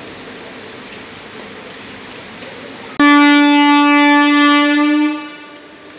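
Rain hiss, then halfway through a train horn sounds one loud, steady single-pitched blast for about two seconds before fading away.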